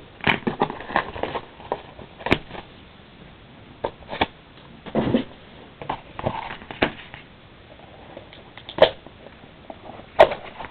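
Packaging of an Upper Deck Premier Basketball card box being handled and opened: scattered crinkles, clicks and taps, with no steady sound between them.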